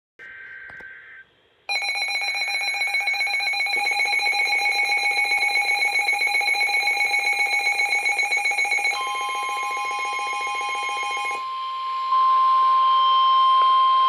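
Midland weather alert radios sounding a severe thunderstorm warning alarm. A brief buzzy burst comes first, then a fast-pulsing, several-tone beeping alarm for about seven seconds, then the long steady NOAA Weather Radio warning alert tone, which gets louder near the end.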